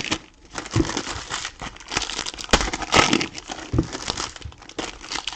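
Trading-card pack wrappers crinkling and crackling as they are handled and opened, with scattered sharp ticks.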